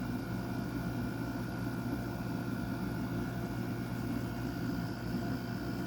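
2002 Whirlpool Gold window air conditioner running steadily: its Rechi rotary compressor and blower fan make an even, unchanging hum and rush of air.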